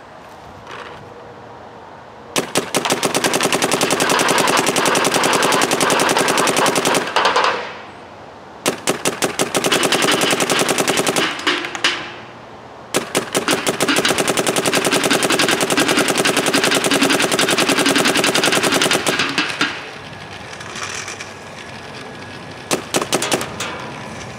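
Dye M3+ electronic paintball marker fired in three long rapid-fire strings, then a few short bursts near the end. It is shooting brittle paint left outside overnight without a single ball breaking in the gun.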